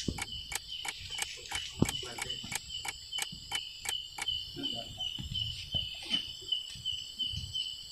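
Night forest insects and frogs calling: a steady high trill runs throughout, joined by a regular train of sharp clicks, about three a second, that stops about halfway through.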